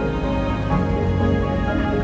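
Background music with held notes that shift in pitch every so often.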